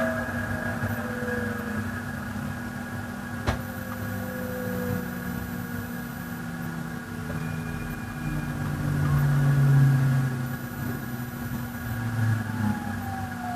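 E353 series electric train's IGBT-VVVF inverter and traction motors heard from inside a motor car as the train slows into a station: slowly falling inverter tones over a steady motor whine and rolling rumble. One sharp click about three and a half seconds in.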